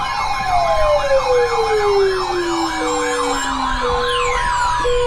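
Several sirens sounding together: a rapid up-and-down wail over a long tone that glides steadily down, a steady tone, and short lower beeps about once a second from about halfway through. Near the end a second falling tone starts.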